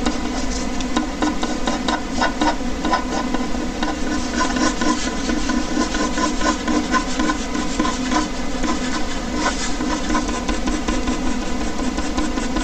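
Ballpoint pen scratching across paper in quick, repeated strokes, over the steady hum of an air conditioner.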